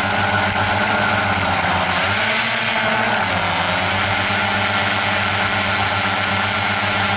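Drone's electric motors and propellers running with a steady multi-toned buzz. The pitch drops about two seconds in and climbs back near three and a half seconds.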